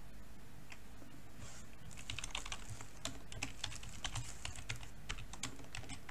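Typing on a computer keyboard: a quick, irregular run of keystrokes starting about two seconds in, after a single click about a second earlier.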